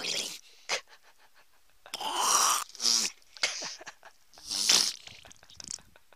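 A young seal pup breathing and snorting at the water's surface right by the kayak: a string of sharp, breathy puffs, some ending in a short falling grunt.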